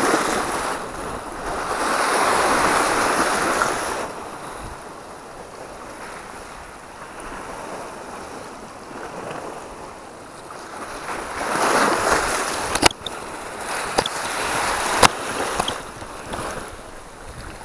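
Sea waves surging and washing against the rocks, swelling twice, about a second in and again past the middle. A few sharp clicks sound near the end.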